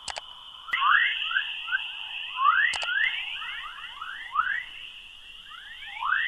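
Radio recording of plasma waves in Earth's magnetosphere turned into sound: many short rising chirps, several a second, over a steady high hiss, with a few sharp clicks. The rising chirps are the pattern known as chorus. It gets louder about a second in.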